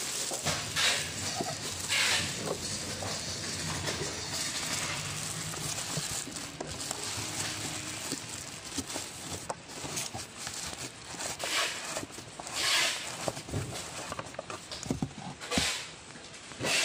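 Clear plastic wrap and foam packing sheets rustling and crinkling as they are handled, with several louder crackling bursts and small knocks.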